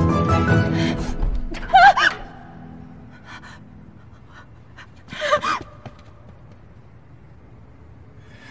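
Tense drama background music that ends about two seconds in, cut by a loud, high, wavering cry; a second, shorter cry comes about five seconds in, then only low room tone.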